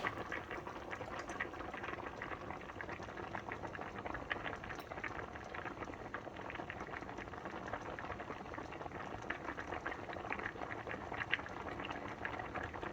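A pot of water boiling with the pasta in it, bubbling and popping steadily.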